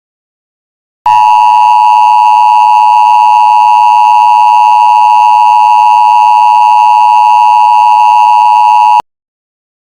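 Emergency Alert System attention signal: a loud, steady two-tone alert just under 1 kHz, starting about a second in, lasting about eight seconds and cutting off abruptly. It is the tone that announces an emergency alert message.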